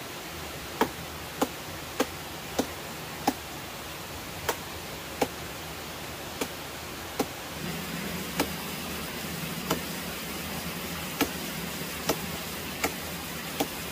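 A machete chopping into a palm trunk: about fifteen sharp, short blows at an uneven pace, over a steady hiss that grows a little louder about halfway through.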